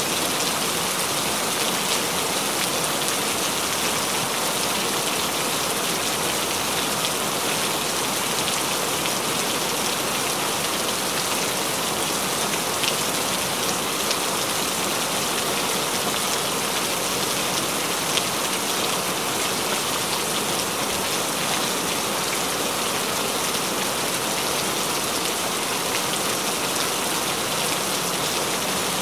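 Steady rain falling onto wet ground: an even, constant hiss with fine drop ticks.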